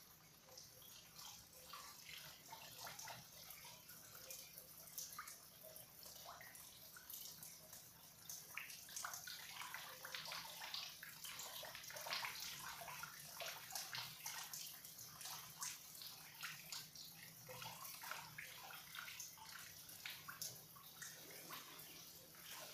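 Water leaking from a pipe in a flooded basement, trickling down and splashing into the water below as many small, irregular drips and splashes.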